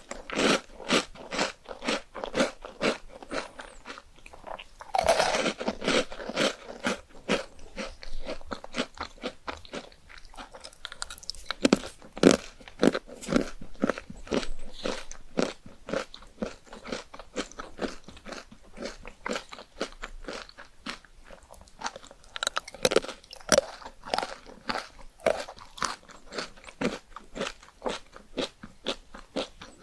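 A person eating chocolate ice cream, biting and chewing with crisp crunching, several crunches a second, with a louder run of bites about five seconds in.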